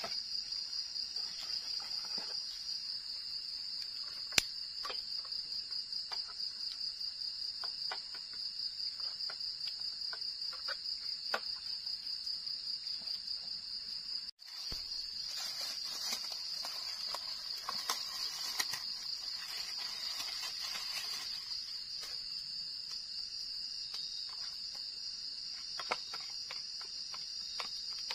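Crickets trilling at night, a steady high-pitched chirr with a fast pulse that runs on without pause. Scattered sharp clicks and some rustling come from things being handled close by, and the sound drops out for a moment about halfway through.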